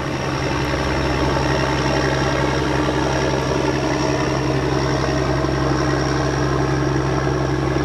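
A boat's engine running steadily, a low even drone with no change in speed.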